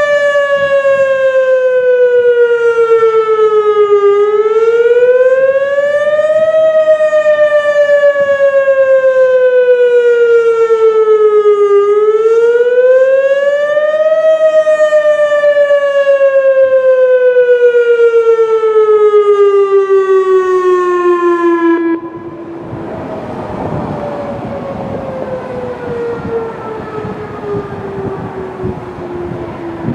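Single-cell Whelen WS-281 outdoor warning siren sounding its wail: one loud tone that slowly falls and rises, climbing twice, about 8 seconds per cycle. About two-thirds of the way through it drops suddenly in loudness under wind-like noise, while the tone keeps sliding down.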